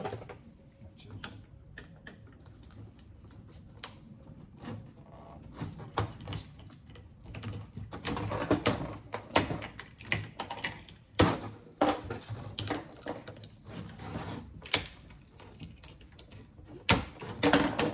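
Hand tools clicking, knocking and prying on a home theater unit's circuit boards and metal parts while it is taken apart for scrap: irregular sharp clicks and knocks, growing busier after about eight seconds.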